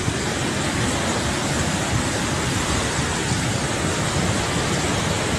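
Steady rushing of a flash-flood torrent of muddy water surging down a swollen river channel.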